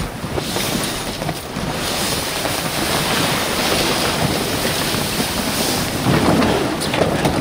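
Wind on the microphone and the rush of sea water along the hull of an ocean racing yacht under sail, swelling louder through the middle.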